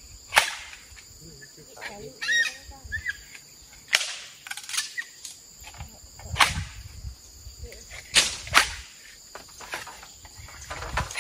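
Sharp, irregular knocks and cracks of tools striking bamboo stakes, one every second or two.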